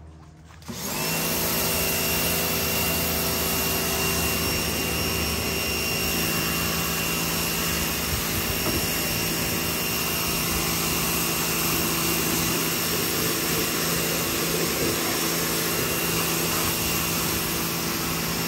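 Electric pressure washer running, a steady motor whine with the hiss of the water spray. It cuts out briefly at the start and starts up again about a second in.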